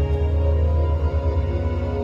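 Dark background music: a deep low drone under steady held tones.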